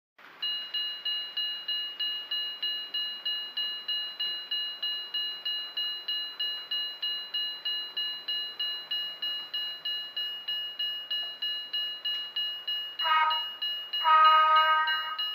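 Electronic level-crossing bell sound from a model railway crossing flasher and bell unit, starting about half a second in and striking steadily at about two and a half strikes a second with a clear, high ring. Near the end, a louder horn-like tone sounds twice over the bell, first briefly, then for about a second.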